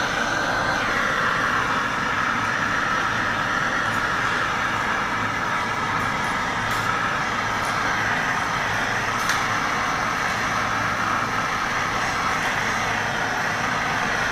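Handheld gas torch burning with a steady hiss, its flame played over a freshly thrown clay vase on a potter's wheel.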